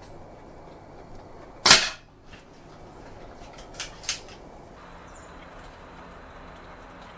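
SMK PR900W pre-charged pneumatic air rifle firing a single shot: one sharp crack about one and a half seconds in. About two seconds later come two light clicks as the bolt is worked to load the next pellet into the single-shot tray.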